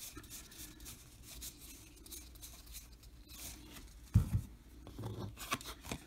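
Cardboard trading cards being flipped through by hand, the card stock sliding and flicking against itself in soft, quick scrapes. A dull thump about four seconds in, followed by a few lighter knocks.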